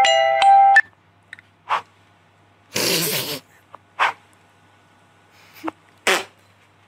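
One loud sneeze about three seconds in, with several short, sharp snort-like sounds before and after it.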